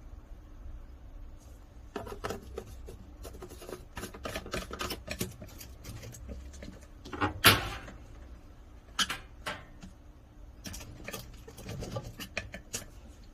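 Handling noise from fitting a washing machine drain trap and its drain hose: a run of irregular clicks, taps and knocks, the loudest a sharp knock about seven and a half seconds in.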